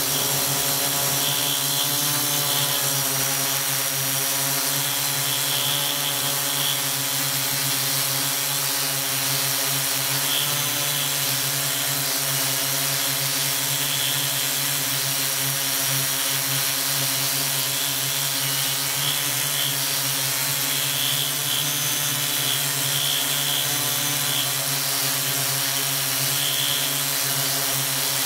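Multirotor drone's electric motors and propellers running steadily in a hover: an even, many-toned hum over a constant hiss.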